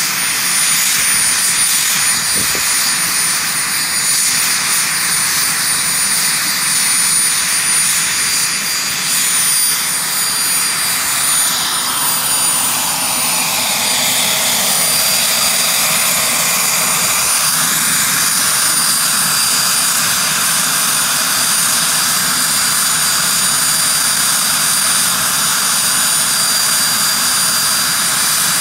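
Turbomeca Astazou XIVH turboshaft engine of a Gazelle SA342J helicopter running on the ground, freshly compressor-washed, with a steady high-pitched turbine whine over a loud hiss.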